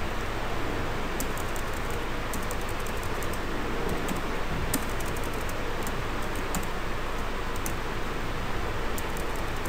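Steady recording hiss, with faint, scattered clicks of a computer keyboard's backspace key tapped over and over.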